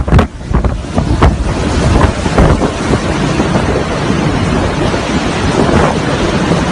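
Strong storm wind battering the microphone: a loud, dense rushing noise that gusts up and down, with a few sharper blasts in the first couple of seconds.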